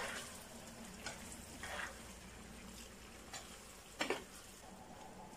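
Chopped vegetables frying softly in a pan as they are stirred with a plastic spoon, with a few soft scrapes and a sharper knock about four seconds in.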